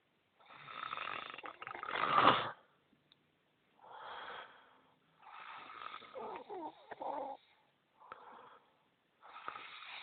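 A man snoring loudly in his sleep: about five rasping breaths with short silent gaps between them, the loudest around two seconds in, one with a wavering pitched tone in it.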